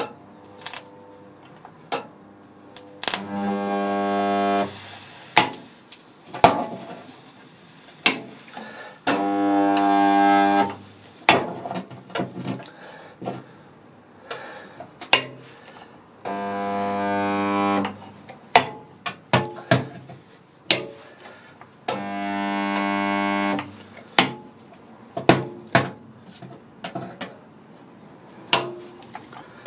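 Hand-held resistance spot welder, its electrodes shaped to reach over the A-post, making a row of spot welds in steel body panels. Each weld is a steady electrical buzz of about two seconds, four of them spaced several seconds apart and a fifth starting at the end. Between welds there are sharp clicks and clanks as the tongs are moved along.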